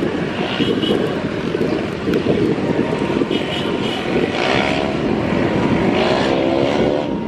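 Airbus A330neo's Rolls-Royce Trent 7000 jet engines running at low taxi thrust: a steady rumble with a thin whine that comes in about halfway through, mixed with strong wind buffeting the microphone.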